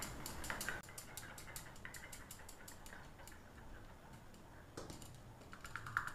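Metal spoon clicking faintly against a small wooden bowl while stirring custard powder into milk: a quick run of light ticks in the first second or so, sparser ticks after, and another run near the end.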